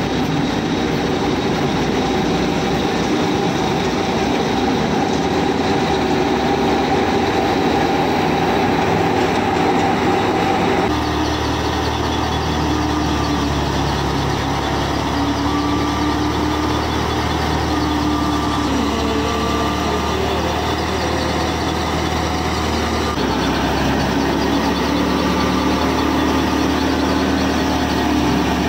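A miniature model thresher running, driven through a drive shaft from a toy tractor: a steady mechanical hum whose pitch changes abruptly twice.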